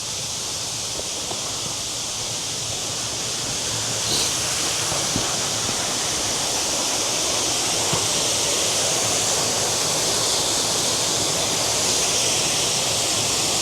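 Waterfall rushing: a steady hiss of falling water that grows slowly louder, with a few faint knocks.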